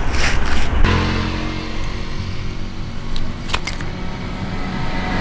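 A motor vehicle engine running steadily in the background, its hum setting in a little under a second in. A few small metallic clicks of carburetor parts being handled are heard about three and a half seconds in.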